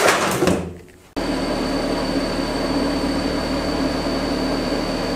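Gweike Cloud Pro 50 W CO2 laser cutter running a cutting test on plywood: a steady machine drone with a constant high whine. It starts abruptly about a second in, after a short noise at the start.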